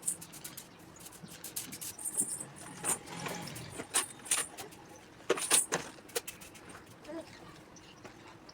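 Lovebirds moving about in their nest, scratching and rustling the nesting material with many sharp clicks and scrapes, plus a couple of brief high squeaks.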